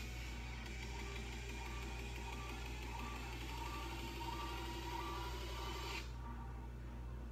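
Faint audio playing from a phone's small speaker, with a steady low hum underneath; the phone audio cuts off suddenly about six seconds in.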